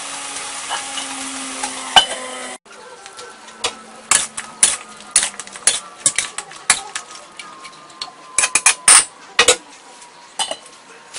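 Chicken wings sizzling as they simmer in sauce in a steel wok. After a cut, a spatula scrapes and clacks against the wok as the wings are turned, with a few louder metal clanks near the end as a metal lid is set on.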